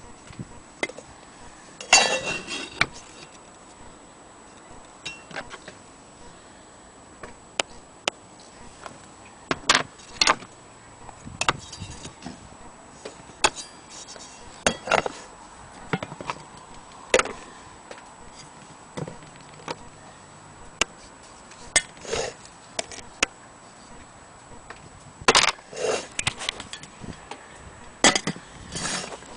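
Old anniversary dome clock being handled: irregular light knocks, taps and clinks of glass and metal parts, a second or more apart, with a few louder rattling clatters. It is not ticking.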